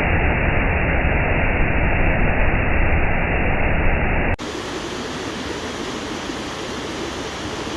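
Steady rushing of a waterfall. About four seconds in it changes abruptly from a louder, duller rush with a heavy low rumble to a quieter, brighter rush.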